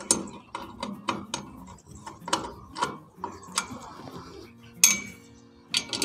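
A 12 mm wrench working the bolts on a steel satellite-dish mount: sharp, irregular metallic clicks, a few a second, as the bolts are loosened.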